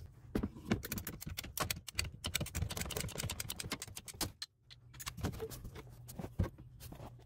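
Ratcheting plastic-pipe cutter clicking rapidly as it is worked through a black ABS drain pipe. The clicks stop briefly about four seconds in, then come back sparser.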